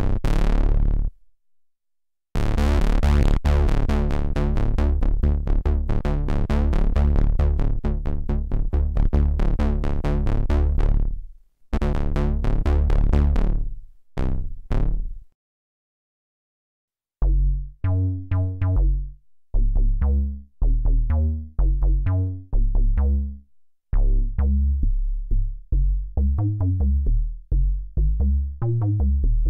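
DIY breadboard analog synthesizer playing a bass patch from a keyboard; the player thinks the patch uses all three oscillators. Deep, bright bass notes in quick repeated pulses, then after a short pause a riff of short, plucky bass notes that die away fast.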